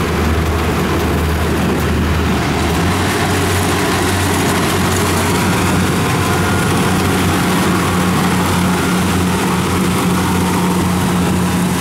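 Kubota DC-70 combine harvester running steadily under load while harvesting rice: a constant diesel engine hum with the clatter and whirr of the cutter, chains and threshing machinery.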